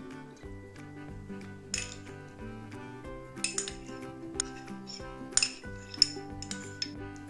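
A metal spoon clinking and scraping against a small bowl and a stainless steel pot as butter is scraped into boiled potatoes: about half a dozen sharp clinks over background music.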